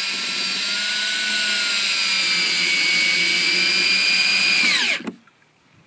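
Electric drill driving a screw into a wooden fence, its motor whining steadily, then falling in pitch and stopping about five seconds in.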